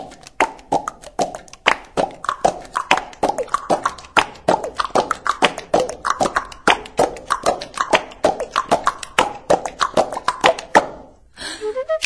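A fast, steady rhythm of sharp clicks and short pitched pops, about four to five a second. It breaks off near the end, and a flute-like melody begins.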